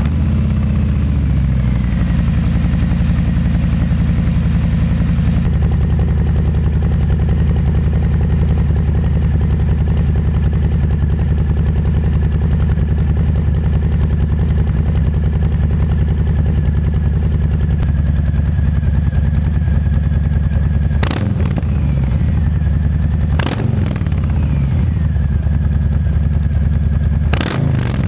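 Harley-Davidson Low Rider S's Milwaukee-Eight 114 V-twin idling steadily through Vance & Hines slip-on mufflers just after start-up. Three quick throttle blips come near the end.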